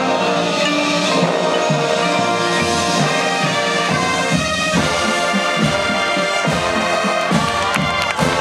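Marching band playing: brass and saxophones hold chords, then about halfway through a rhythmic passage of short, repeated low brass notes with drum hits.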